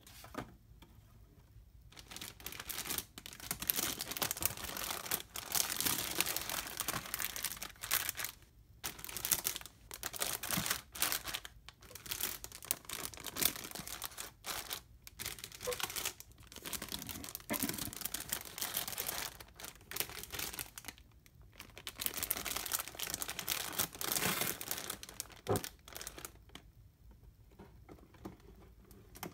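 Clear plastic bags holding a plastic model kit's runners crinkling as hands lift and shift them in the cardboard box. The crinkling starts about two seconds in, pauses briefly twice, and dies away near the end.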